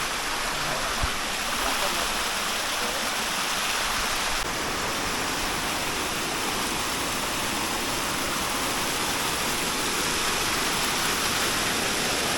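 Steady rushing water noise from the Tumpak Sewu waterfall, a large, powerful waterfall, unbroken and even throughout.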